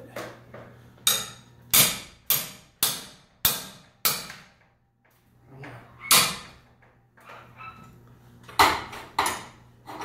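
About nine sharp metallic clanks at irregular intervals, with a quiet gap in the middle: steel winding bars knocking in the winding cone of a garage door torsion spring.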